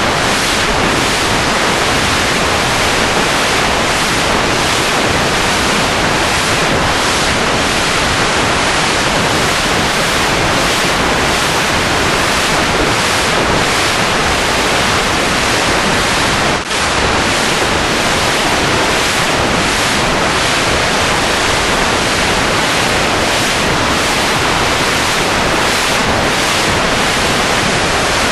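Steady, loud rushing noise like static or surf, spread evenly from low to high pitch, with a brief drop about seventeen seconds in.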